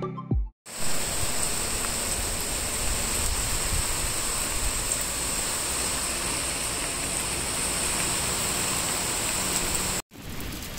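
Heavy monsoon rain falling, a steady even hiss with a steady high-pitched drone above it; it cuts off abruptly near the end.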